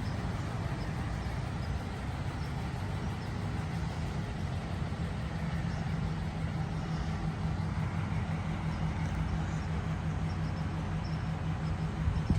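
Lifted 2005 Dodge Ram 1500 pickup's engine running at low speed as the truck pulls out. The low, steady engine note grows stronger a few seconds in and gets gradually louder.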